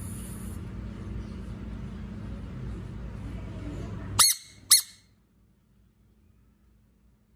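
A frog's distress scream: two short, loud, high squeals about half a second apart, over a low steady hum that stops just before them.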